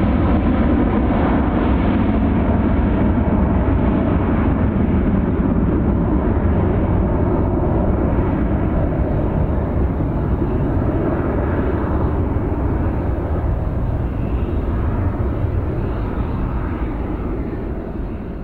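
Airbus A319CJ's twin CFM56 turbofan engines at takeoff power as the jet climbs away: a steady, heavy roar with a faint whine in it at first, slowly fading as the aircraft draws off.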